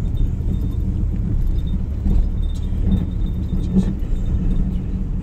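Chevrolet S-10 pickup running with a steady low rumble, with a few light clinks and rattles.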